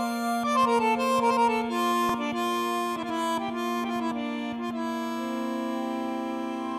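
Instrumental music: a low note held steadily under a quick run of melody notes, which then settles into long sustained chords.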